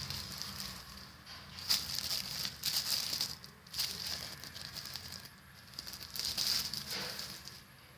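Blu-ray packaging being handled: rustling and crinkling in irregular bursts, with a few light clicks.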